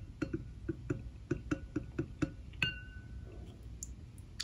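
Plastic toy monster truck knocking against the bottom of a ceramic bowl of water: a run of light clicks about four a second, then one louder knock that leaves the bowl ringing briefly.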